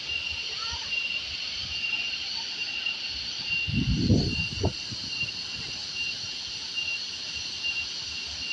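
Steady rush of water falling from a spout below a waterfall, with a high, pulsing insect trill over it. A brief low thump or buffet about four seconds in.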